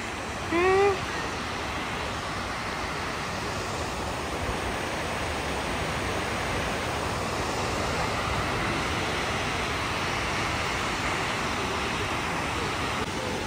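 Steady rushing of the 9/11 Memorial reflecting pool's waterfalls, water falling in sheets down the granite walls into the pool. A person's voice is heard briefly about a second in.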